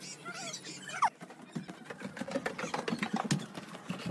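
Footsteps on a houseboat's wooden plank floor: a quick, uneven run of knocking steps from about a second and a half in. Before that come a few short squeaky calls, the brightest one sweeping fast about a second in.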